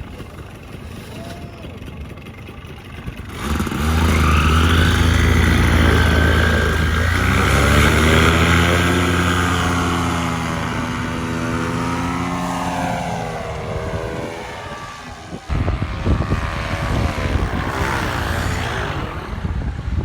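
Polini Thor paramotor's single-cylinder two-stroke engine running low, then revved up about three seconds in, its pitch rising and sinking back over about ten seconds. After a sudden break, it is run up again near the end.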